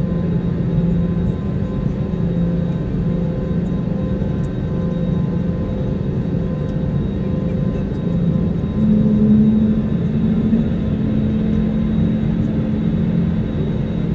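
Airbus A320neo's jet engines idling, heard inside the cabin as a steady hum and rush of noise while the aircraft waits on the ground. A slightly higher, louder hum swells in about nine seconds in.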